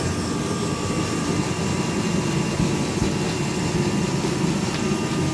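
Steady drone of a fan or motor-driven machine running, with a faint steady whine above it.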